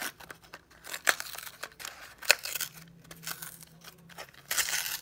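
Plastic blister pack and cardboard backing of a die-cast toy car being pulled apart by hand: crinkling plastic and tearing card, with sharp crackles and a louder stretch of tearing near the end.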